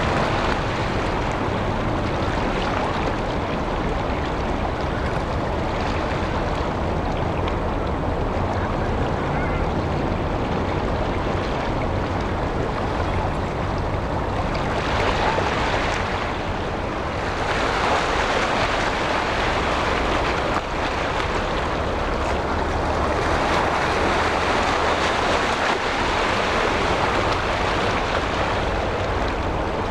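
Steady rushing of wind on the microphone and small waves washing on shore stones, swelling louder about halfway through.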